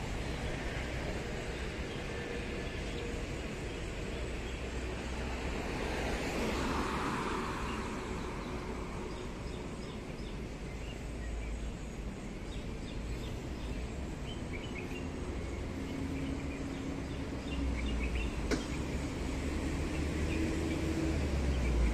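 Outdoor street ambience: steady traffic noise with a low rumble, a vehicle swelling past about six to eight seconds in, and a single sharp click near the end.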